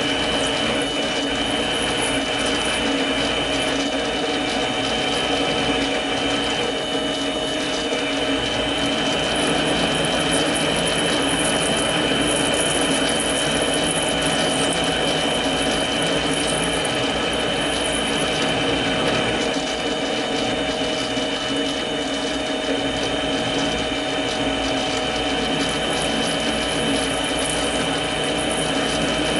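Mini lathe running steadily, with a high gear whine, while a spring parting tool cuts a deep groove to part off the work.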